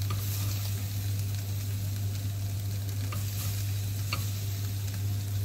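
Sliced onions sizzling in a cast-iron grill pan over a steady low hum, with two faint clicks about three and four seconds in.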